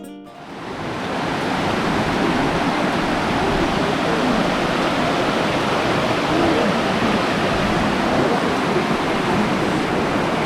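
Steady rush of flowing water, fading in over the first second or two and then holding level.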